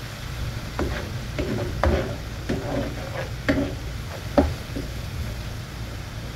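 Steel spoon stirring and scraping a thick, sizzling masala paste of fried onion and ground spices in a frying pan, the paste cooked down (bhuna) and ready for the eggs. The spoon knocks sharply against the pan several times, loudest about four and a half seconds in.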